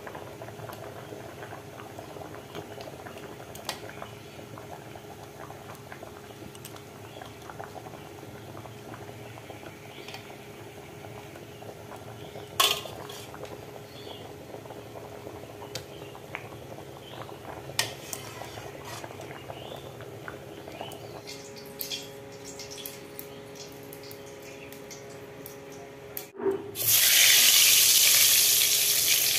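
Fish curry simmering in a pot: a soft bubbling with scattered small pops and a couple of sharp clicks. About 26 seconds in, it cuts to eggplant slices frying in oil in a wok, a loud, steady sizzle.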